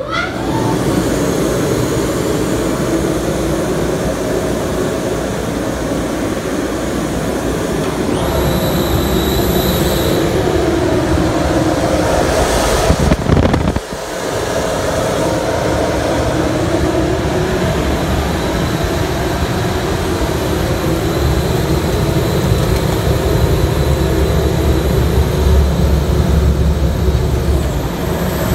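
Lasermet laser fume extractor's fan motor running at full speed just after switch-on. It makes a loud, steady rush of air with a low hum and a faint high whine, and its rising spin-up is ending at the very start. About halfway through, while something white is held at the intake opening, the sound swells for a second or so and then drops sharply.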